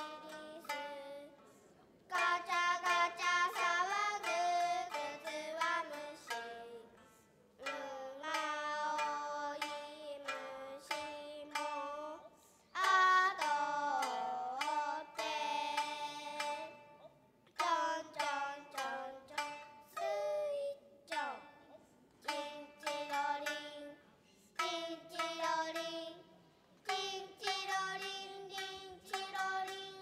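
Nagauta: young girls' voices singing in held, bending phrases with short pauses between them, accompanied by two shamisen plucked with sharp, twangy strikes.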